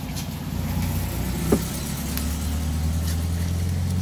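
A vehicle engine running with a steady low hum that grows stronger within the first second. About a second and a half in, a large knife strikes the wooden chopping block once with a sharp knock.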